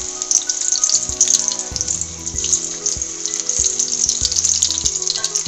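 Spinach-paneer balls deep-frying in hot oil in a kadhai: a steady, loud sizzle with many small crackling pops.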